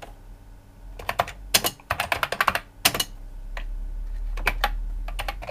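Typing on the Commodore 64's own keyboard: irregular keystrokes in two runs, with a short gap around the middle.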